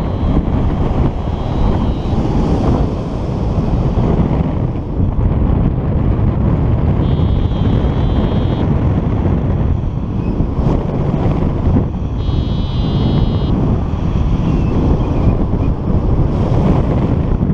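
Wind buffeting the microphone during paraglider flight, loud and steady throughout. Over it, a paragliding variometer gives faint warbling climb beeps in three short spells: about a second in, about seven seconds in and about twelve seconds in. The spells are typical of broken, disorganised thermal lift.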